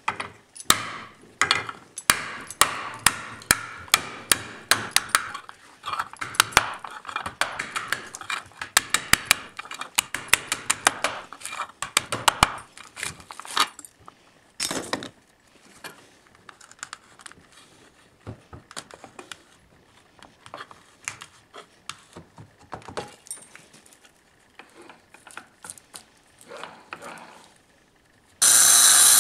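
Claw hammer striking the seized cutting disc on an angle grinder, rapid sharp blows about three a second for the first dozen seconds, smashing the disc to pieces; then quieter clicks and scraping as the broken fibre-mesh fragments are picked away. About a second before the end a second angle grinder starts abruptly and runs loudly, to cut out the rest of the old disc.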